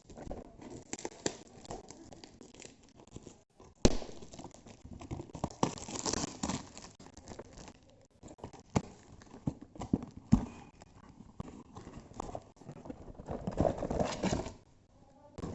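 A product box and its plastic packaging being opened and handled by hand: crinkling and tearing, with scattered knocks and clicks and one sharp knock about four seconds in.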